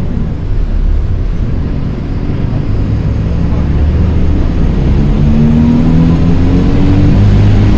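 A TransJakarta city bus running, heard from inside the cabin: a heavy, steady low rumble of engine and road. From about five seconds in, a whine rises in pitch as the bus picks up speed.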